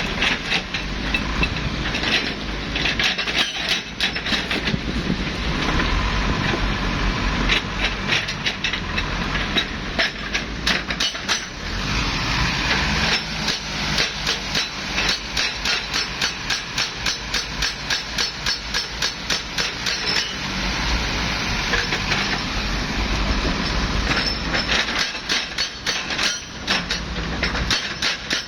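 Heavy excavator working, with a low engine rumble under fast, rhythmic metallic clanking of several knocks a second that comes and goes.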